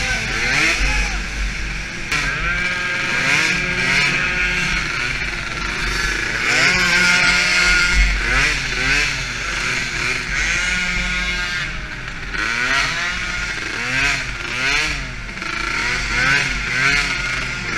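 DRR 50 youth quad's small engine buzzing and revving up and down through the turns of a dirt track, with other 50 cc quads' engines rising and falling alongside it.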